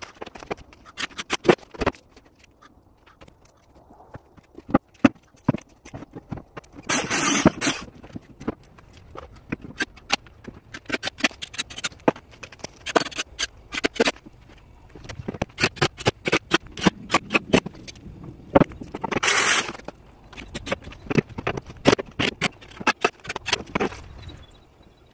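Boards and plywood being knocked into place and fastened with a cordless drill: a string of sharp knocks and clicks, with two short drill runs, about 7 and 19 seconds in.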